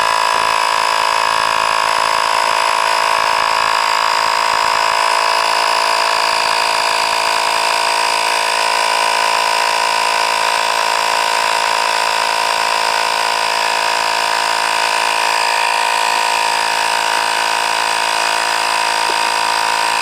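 Miniature 12-volt tire inflator's piston compressor running steadily with an even whine while pumping up a truck tire at about 22 PSI, not sounding stressed.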